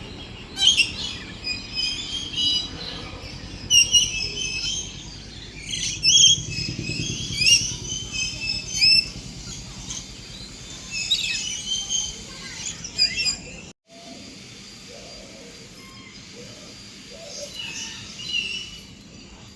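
Birds chirping and trilling in short, high-pitched calls, many overlapping in the first part. A brief dropout about fourteen seconds in; after it only a few scattered chirps over a low background hum.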